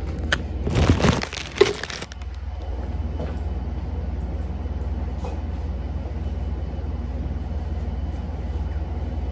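A phone being handled and set in place on a hard surface: scraping and rustling with a sharp knock in the first two seconds, then a steady low hum.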